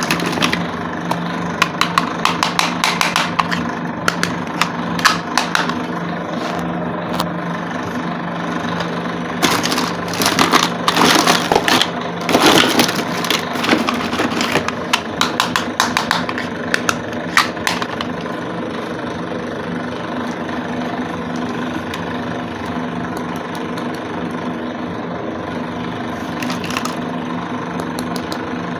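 Small plastic toy pieces and packaging clicking and crackling as they are handled, in clusters that are busiest in the middle, over a steady low hum.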